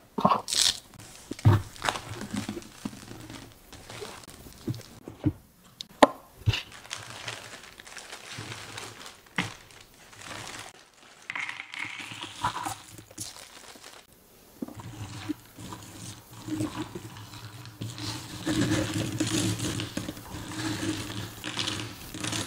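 Jigsaw puzzle box being opened and handled: sharp taps and knocks of the cardboard box and lid, then a plastic bag crinkling as the cardboard pieces are poured out. In the second half the pieces rattle and scrape against each other as they are spread in the tray.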